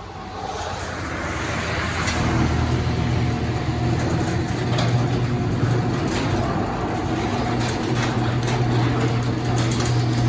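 Craftsman chain-drive garage door opener running and moving the door, its motor humming steadily with scattered clicks and rattles from the chain and door rollers. The sound builds over the first couple of seconds, then holds steady.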